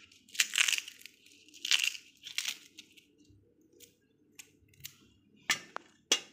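Fresh jempiran stalks, a ginger-like plant, having their fibrous outer sheaths peeled off by hand. Three short tearing, crackly rasps come in the first three seconds, then a few sharp separate clicks and taps.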